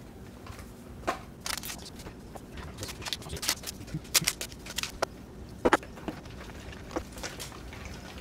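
Paper packets of unflavored gelatin being handled, torn and shaken out, and a metal spoon tapping and scraping in a glass bowl as the gelatin is stirred into water. It comes as a string of short, sharp clicks and rustles in irregular clusters.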